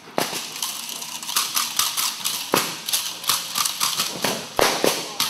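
Rapid, irregular sharp slaps and knocks of a dog fighting a fabric bite tug with a man: the tug flapping and smacking, feet stamping and scuffling on the rubber floor. The loudest hits come about two and a half seconds in and near the end.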